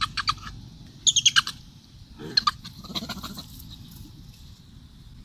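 Long-tailed macaque giving rapid high-pitched squeaks in four short bursts, each a quick run of pulses, over a faint steady high hiss.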